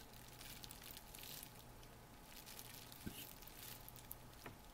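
Near silence: a low steady hum with a few faint small clicks and crinkles of handling on bubble wrap.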